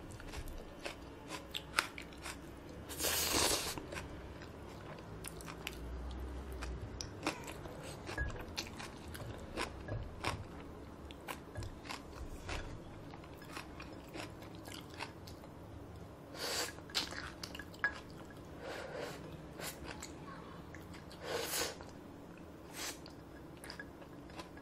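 A person chewing a mouthful of Paldo Bibimmyeon cold spicy mixed noodles close to the microphone, with many small wet mouth clicks and a few louder half-second eating noises.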